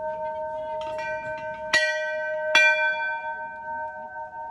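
Hanging brass temple bells rung by hand: a light strike about a second in, then two loud strikes less than a second apart. Each strike leaves a long ringing tone over bells that are still sounding.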